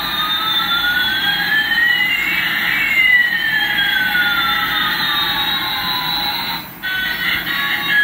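Electronic sound effect from a battery-powered toy Airbus A380 airliner: two synthetic tones glide steadily in opposite directions, one rising and one falling, and cross midway. Near the end the sweep breaks off briefly and a run of short electronic tones follows.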